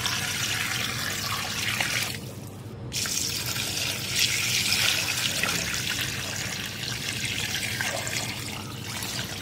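Water poured in a stream into a metal cooking pot of beef trotters and spices, splashing onto the meat and then into the rising water, to cover the trotters for boiling. The pour stops briefly about two seconds in, then starts again and runs steadily.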